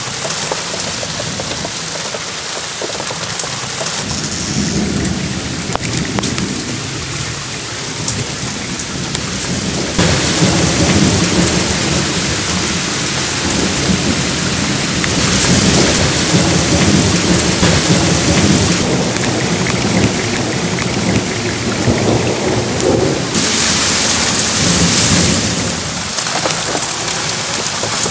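Torrential rain hissing steadily with rolling thunder that rumbles on from a few seconds in, growing louder about ten seconds in. The rain surges louder twice in the second half.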